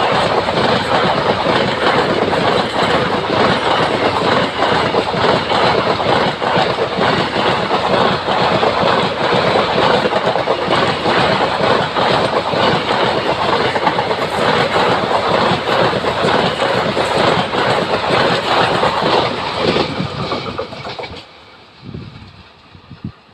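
Passenger coaches of an express train passing at speed: loud, continuous wheel-on-rail rumble with rapid clickety-clack over the rail joints. The noise dies away about twenty seconds in.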